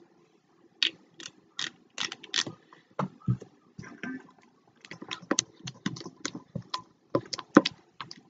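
Slime being stirred with a spatula in a bowl: a long run of irregular clicks and small sticky pops.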